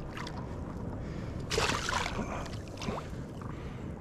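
Water splashing beside a paddleboard as a hooked lingcod at the surface is drawn in to a metal stringer, with one louder splash about a second and a half in and a smaller one near three seconds.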